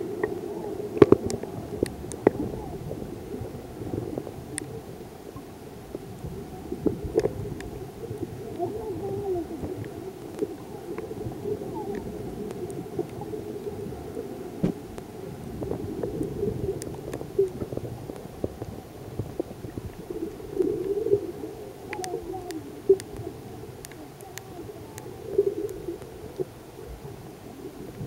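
Muffled underwater sound from a camera in a waterproof housing hanging on a rope: a low, shifting rumble of water moving around the housing, with scattered sharp clicks and knocks.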